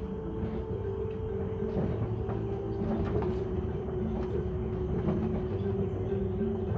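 Tourist tram in motion: a steady motor hum and whine, with light rattles and clicks from the carriage.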